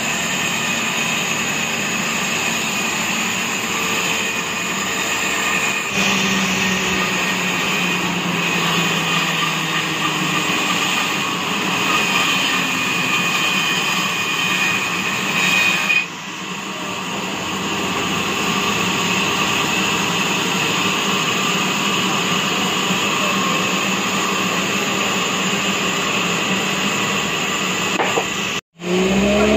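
Sawmill log band saw and its carriage machinery running, a loud steady drone with a high whine. The sound shifts about a quarter of the way in, dips briefly around the middle, and cuts out for a moment near the end.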